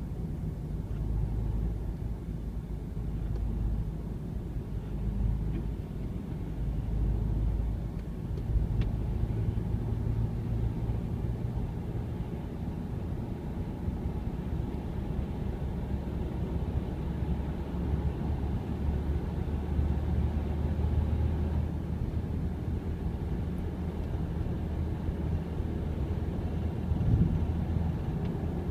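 Ford Mondeo Mk3 on the move, a steady low engine and road rumble.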